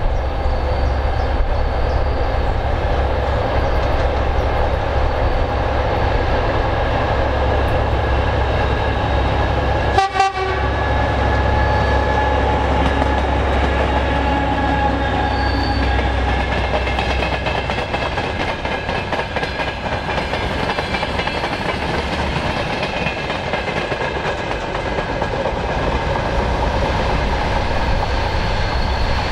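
2M62U twin-section diesel locomotive's two-stroke V12 diesel engines running under load as it hauls a freight train past, a deep steady drone. After the locomotive passes, the drone fades and the rolling clatter of freight wagons on the rails carries on.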